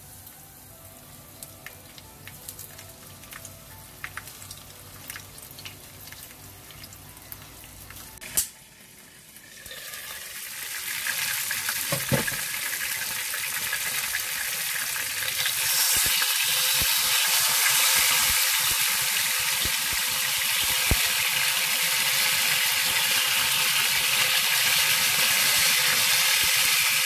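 Two whole fish coated in turmeric and corn flour shallow-frying in oil in a nonstick pan. Quiet at first with a sharp click about eight seconds in, then the sizzle swells about ten seconds in and runs loud and steady with light crackling.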